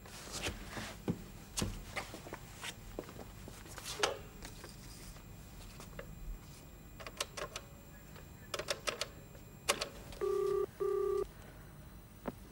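Handling of a push-button telephone: the handset is lifted and keys are pressed, giving a string of sharp clicks and knocks. About ten seconds in, a steady telephone tone sounds from the line in two short pulses.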